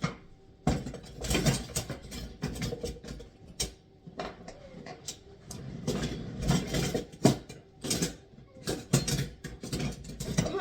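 Rummaging through a kitchen drawer for a knife: metal utensils clattering and clinking together in irregular bursts.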